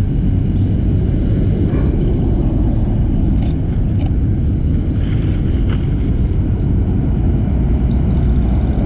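Steady low rumble of street traffic, with two faint sharp clicks about three and a half and four seconds in.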